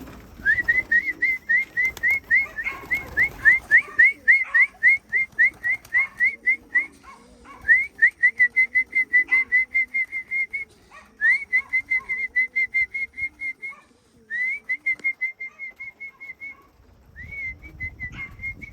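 A person whistling a quick string of short upward-flicking notes, about three or four a second, in five runs with brief pauses, the call that brings trained pigeons into the loft to feed. Pigeons coo faintly underneath.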